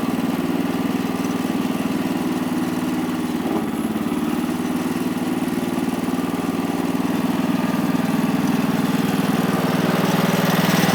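Homemade sawmill's 14 hp Kohler engine running steadily, a continuous even hum that grows slightly louder near the end.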